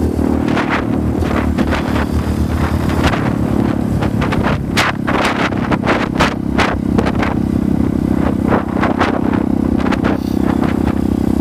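Dirt bike engine running at a steady pace while riding a dirt trail, with repeated gusts of wind buffeting the microphone.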